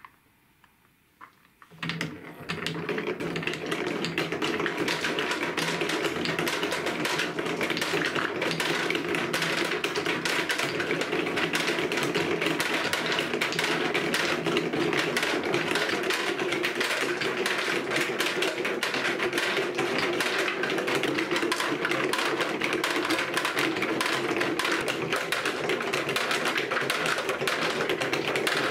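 Many balls rolling and knocking together along a plastic wave-shaped marble-run track: a dense, continuous rattle of rapid clicks over a steady rolling rumble, starting suddenly about two seconds in as the cup of balls is tipped onto the track.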